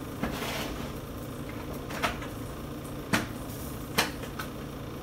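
Hard plastic pistol case being slid and handled on a tabletop: a soft scrape in the first second, then three sharp plastic clicks and knocks about a second apart.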